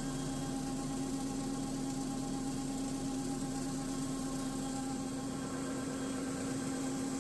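Machinery running with a steady hum and hiss, several constant tones and no change in speed.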